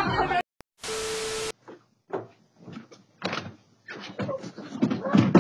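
A short hiss with a steady hum, then a run of irregular knocks and thumps as people step out and walk across a frosty wooden porch, heard through a doorbell camera's microphone. The loudest thump comes near the end.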